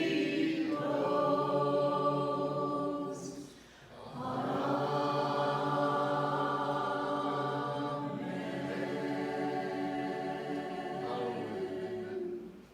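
Choir singing a slow hymn in long held chords, with a short break between phrases about four seconds in; it fades out at the end.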